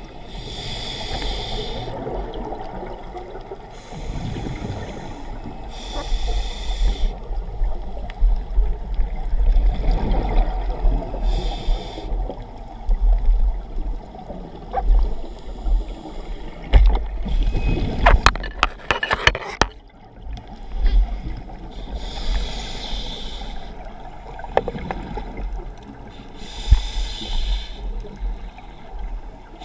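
Scuba breathing heard underwater through a regulator: a burst of hissing bubbles every five or six seconds over a low, steady rumble of water. A quick cluster of clicks comes about two-thirds of the way through.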